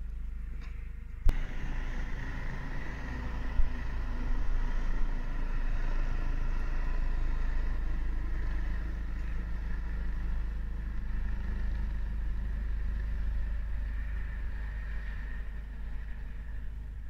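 Police helicopter circling overhead: a steady rotor and engine drone with a faint steady whine, louder after a sharp click about a second in and easing slightly near the end.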